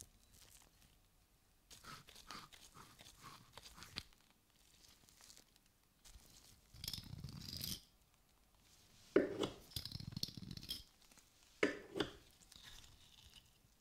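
Gloved hands working wet, soapy rusty pulley parts as a threaded bolt is unscrewed from its bushing: a handful of short rasping, crunchy bursts of rubber glove and gritty metal rubbing, the loudest near the end.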